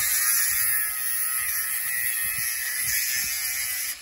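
Handheld angle grinder cutting into a pushchair's metal frame tube: a steady high-pitched whine with a grinding hiss, cutting off suddenly at the end.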